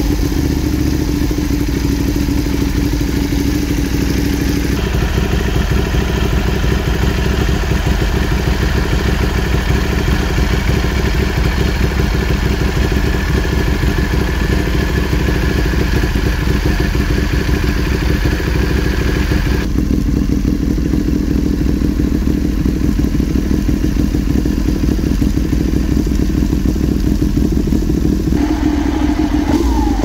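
Ducati 1199 Panigale's Superquadro L-twin idling steadily through a Vandemon titanium undertail exhaust, with the rattle of its dry clutch spinning behind a clear cover.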